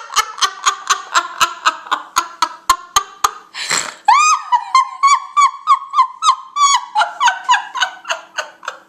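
A woman laughing hard at her own joke in rapid bursts, about four a second, with a sharp breath in just before four seconds in, then higher, squealing laughter that trails off near the end.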